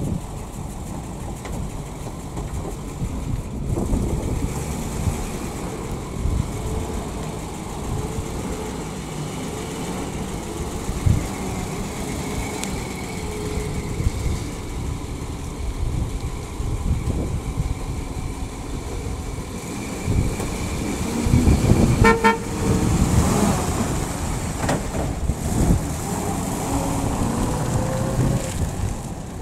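PAZ-672 bus with its carbureted V8 petrol engine running as it drives, heard from outside. A short horn honk sounds about three-quarters of the way in and is the loudest moment.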